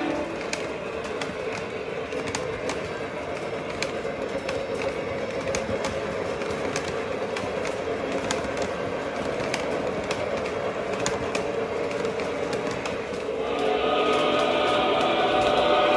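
O-scale model passenger cars rolling over three-rail track, their wheels clicking irregularly over the rail joints over a steady running rumble. About three and a half seconds from the end, a held multi-tone whistle from the Lionel Legacy locomotive's sound system joins in and gets louder.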